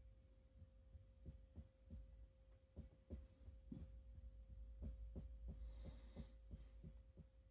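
Near silence: room tone with a faint steady hum and faint low thumps at a quick, uneven beat.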